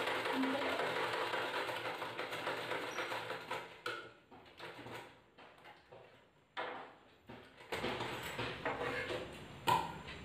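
Sewing machine stitching for the first few seconds, then stopping. Brief handling sounds follow, and there is a short scissors snip near the end.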